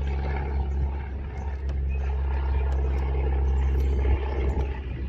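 A steady low mechanical hum, a running machine drone that holds one unchanging pitch.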